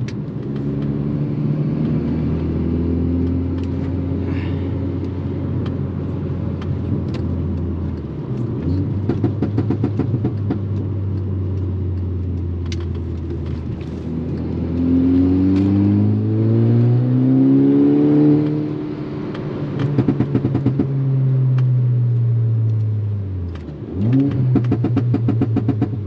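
Tuned MK6 Volkswagen Golf R's turbocharged four-cylinder engine through a custom turbo exhaust, running steadily under light load, then pulling with rising revs about halfway through and easing off again. Exhaust pops and crackles come on the overrun, and a short sharp rise in revs comes near the end.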